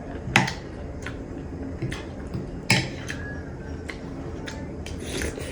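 Close-up eating sounds: a few sharp wet clicks and smacks while chewing, the two loudest about a third of a second in and near the three-second mark, with a short hiss near the end.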